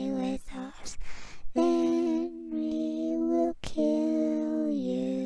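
A woman singing a slow melody in long held notes, phrase after phrase with short breaks between them; the last phrase steps down in pitch near the end.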